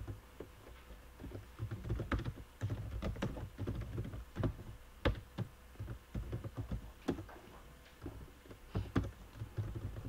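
Typing on a computer keyboard: irregular runs of keystroke clicks with a couple of short pauses.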